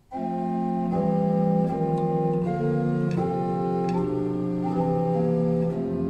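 Organ music: full held chords, changing about once a second, beginning abruptly.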